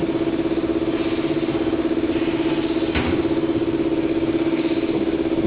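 Automatic hydraulic die-cutting machine running: a steady mechanical hum with a fast, even pulsing, and a faint knock about three seconds in.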